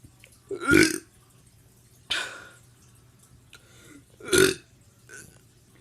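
A teenager burping several times: loud burps about a second in and again about four seconds in, with a shorter, noisier burst between them and a small one near the end.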